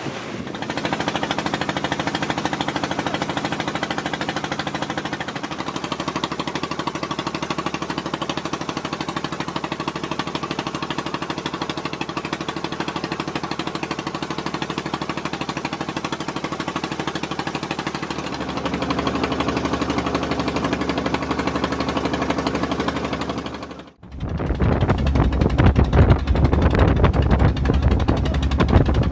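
Boat engine running steadily with a rapid knocking beat. Its note shifts about two-thirds of the way through, then after a momentary break it comes back louder and deeper.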